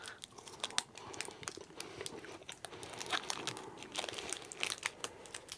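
Kit Kat wrapper crinkling in the hands as it is unwrapped, with faint crunching of a wafer chocolate bar being bitten and chewed; a quiet scatter of small sharp crackles.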